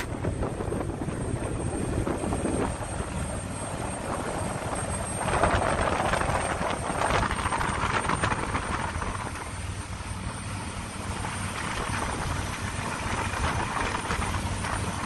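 Jet boat running at speed on its water-jet drive: a steady engine drone mixed with the rush of wake and wind, surging louder for a couple of seconds about five seconds in.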